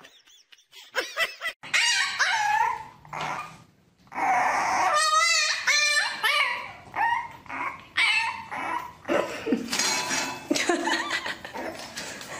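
A puppy yipping and whining in a run of short, high calls that bend in pitch, with one wavering call about five seconds in.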